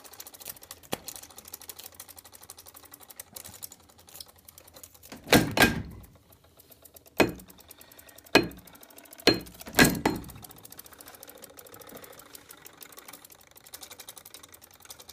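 Homemade magnetic pulse motor running, its makeshift switching contacts chattering in a fast, even clicking as they pulse the electromagnet coils. There are five louder, sharper knocks between about five and ten seconds in.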